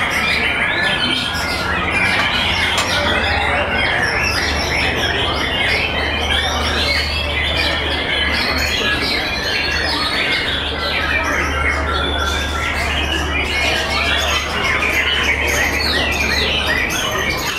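White-rumped shamas singing at once, a dense tangle of overlapping whistles and quick trills with no pause. A steady low hum runs underneath.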